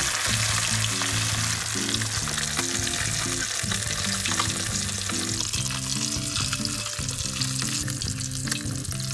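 Whole bluegill deep-frying in very hot oil in a saucepan: a steady, dense sizzle full of crackling bubble pops, with background music underneath.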